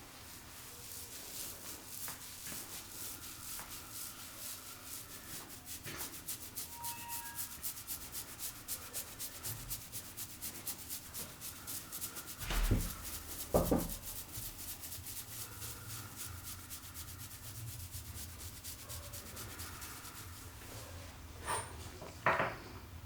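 Hands rubbing briskly over hair and scalp in a head massage, a fast even rhythm of about four strokes a second. Two louder thumps come about halfway through, and two shorter louder sounds near the end.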